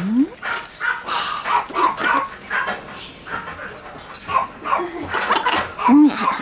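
Young blue-and-gold macaw calling in short, low yelps and grunts while it plays, with newspaper crinkling under its feet and flapping wings. The loudest call is a short rising-and-falling one near the end.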